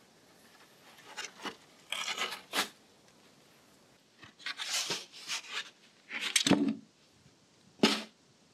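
Polystyrene foam raft sections being handled and laid on grass: several bursts of squeaky foam-on-foam rubbing and scuffing, with a soft thud about six and a half seconds in and a sharper knock near the end.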